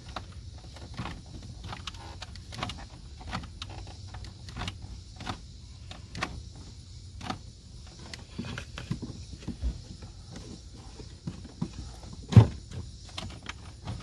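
Plastic clicking and knocking as the end of a car's HVAC selector control cable is pushed and worked onto the plastic air-diverter housing under the dash, with one sharper knock near the end. A steady low hum runs underneath.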